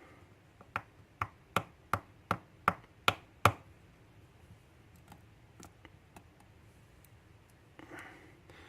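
A run of about eight sharp, light clicks, two or three a second, then a few fainter ticks. These are small metal lock pins and springs from a disassembled pin-tumbler lock being handled and set down.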